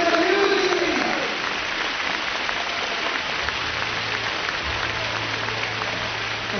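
Arena crowd applauding steadily. A voice is heard briefly in the first second, and a low steady hum joins about three and a half seconds in.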